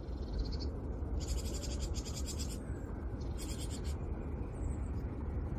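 Outdoor ambience with a steady low rumble, broken by two bursts of high, rapid scratchy chirring: one about a second in lasting just over a second, and a shorter one near three and a half seconds.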